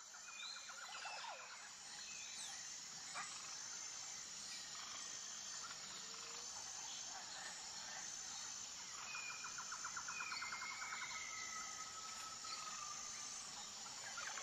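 Faint natural outdoor ambience: wild birds give short rapid trills and a few clear whistled notes, over a steady, high, pulsing insect chirr.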